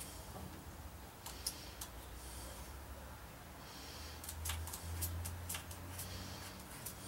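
Light clicks, taps and faint scratching of hand work as an exhaust pipe is held at an angle and marked with a pencil for cutting. The clicks come scattered, a sharper one about a second and a half in and a cluster of them in the second half.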